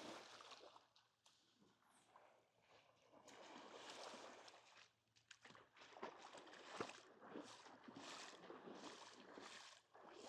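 Faint wash of small waves on a sandy beach, swelling and falling back every few seconds.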